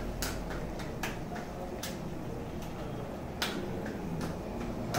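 Bhatura deep-frying in hot oil in an iron kadhai, a steady sizzle, with about five sharp clicks of a steel slotted spoon against the pan as the bread is turned and pressed down.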